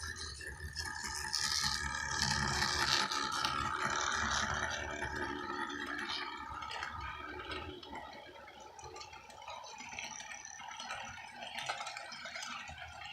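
HO scale model freight train running on the track, its wheels and mechanism rattling steadily over a low hum. The sound is loudest about two to four seconds in, then eases off.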